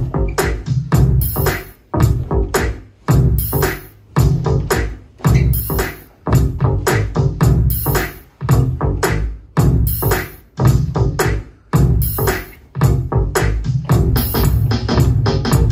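Electronic dance music with a heavy bass and drum-machine beat, played in a stop-start pattern of sharp hits and short gaps about once a second, with synth sounds over it.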